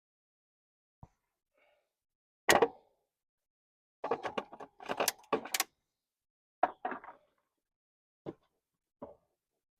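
Irregular knocks and clatter of hard objects being handled: a single loud knock about two and a half seconds in, a quick run of rattling clicks a little later, then a few scattered knocks.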